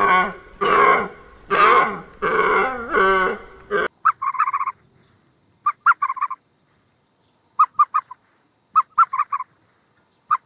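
Animal calls: about five loud, drawn-out calls with a bending pitch, then, about four seconds in, short bursts of rapid chattering notes with pauses between them.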